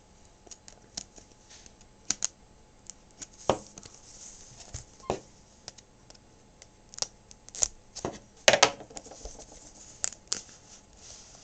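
Knife blade slitting the seal along the edge of a small cardboard product box, with scattered sharp clicks, scrapes and taps as the box is handled; the loudest cluster comes about eight and a half seconds in.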